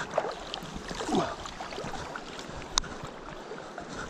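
River water sloshing and splashing around a wading angler's legs and landing net while a big brown trout is played at close range, with one sharp click about three seconds in.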